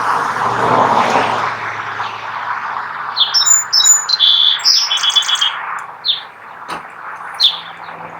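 Small birds chirping: a quick run of high, sharp chirps about three seconds in, then a few single chirps. A broad rushing noise fills the first couple of seconds and fades away.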